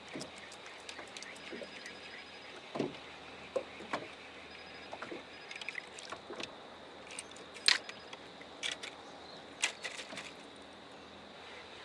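Handling sounds aboard a small fishing boat at drift: scattered knocks and clicks over a faint steady hiss of water and wind. The loudest knock comes about two thirds of the way in.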